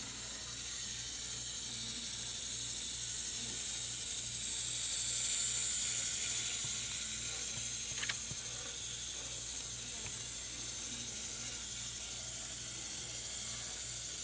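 Small gear motor of a Tomytec Moving Bus System N-scale model bus whirring steadily as it drives round the road track, with a low even pulse, louder around the middle. A single click about eight seconds in as the bus-stop switch is flipped to Stop.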